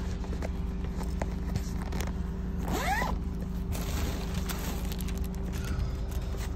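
Steady road and engine noise heard from inside a moving car, with scattered small clicks and a short rising squeak about three seconds in.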